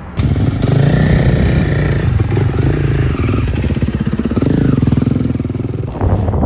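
Dirt bike engine running hard under a rider, its pitch rising and falling with the throttle. It starts abruptly just after the start and drops away to something quieter near the end.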